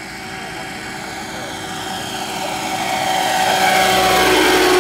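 Large electric RC scale helicopter with a four-blade main rotor and brushless motor running in flight: a steady whine and rotor sound that grows steadily louder as it approaches low, loudest near the end.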